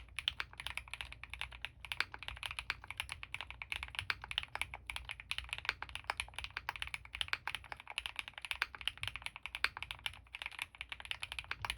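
Fast, continuous typing on a custom mechanical keyboard with Gateron CJ linear switches lubed with Krytox 205g0, an Ultem (PEI) plate and GMK Tuzi keycaps: a dense, unbroken stream of keystroke clacks.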